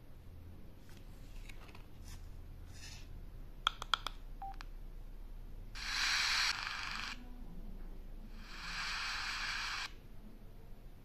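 Freedconn R1 Plus helmet Bluetooth intercom giving a quick cluster of electronic beeps, then a single short beep, as its buttons are pressed. Two spells of steady hiss about a second long follow, the first the loudest.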